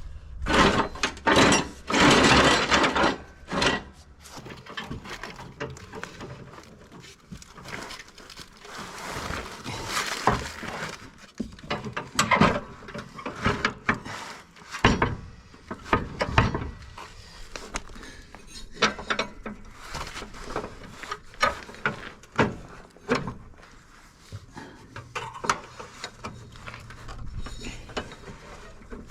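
Hand tools and metal mower parts being worked on: irregular clicks, knocks and scrapes, with a denser scraping stretch about one to three seconds in.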